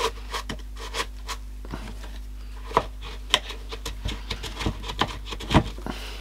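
Irregular clicks, taps and scrapes of hard plastic as the clear dust bin and cyclone assembly of a Dyson V7 cordless vacuum is handled and a small screwdriver works at a screw inside it. The sharpest knock comes a little over five and a half seconds in.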